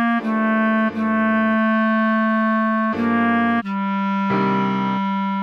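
Clarinet playing a slow melody of held notes that steps down to a long low note about three and a half seconds in, over sustained keyboard chords.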